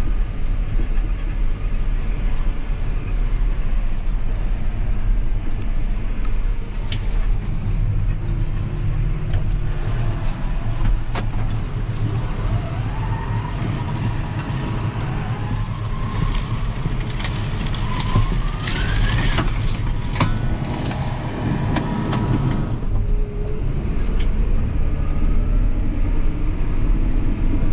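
A John Deere loader tractor's engine running, heard from inside the cab as a steady low rumble with scattered knocks. A short rising whine comes about two-thirds of the way in.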